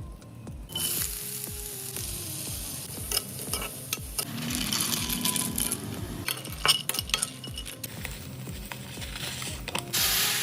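Food sizzling in a frying pan, with a utensil stirring and clicking against the pan.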